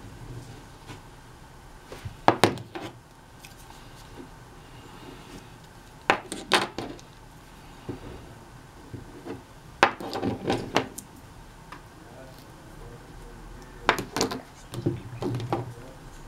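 Metal oil-paint tubes being handled on a wooden table: several short clusters of knocks and clicks as tubes are picked up, squeezed and set down.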